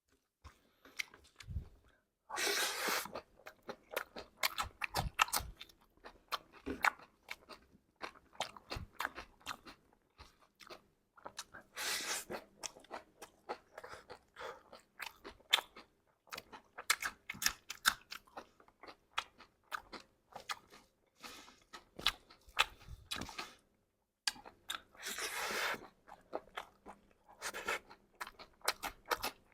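Close-up chewing and crunching of chatpate, a mix of puffed rice, sev and raw vegetables, with a run of crisp crackles and several louder crunchy bites.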